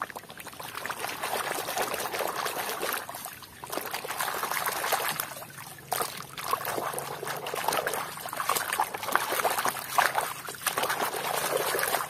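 A hand swishing and scrubbing a toy in a plastic basin of muddy water: water splashing and sloshing unevenly, breaking off briefly about three times.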